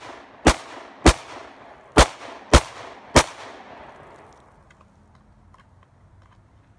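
Five 9mm shots from a Glock 19 Gen 4 pistol fired at a steady pace, a little over half a second to a second apart, each sharp report trailing an echo. A few faint clicks follow near the end.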